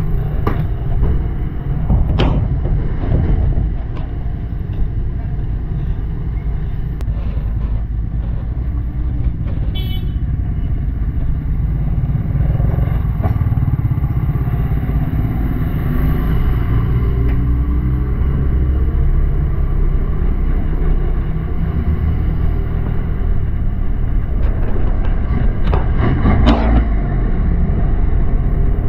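Honda Click 125i scooter's single-cylinder engine running under way, with road and air noise making a steady low rumble. A few sharp knocks come near the start and again near the end.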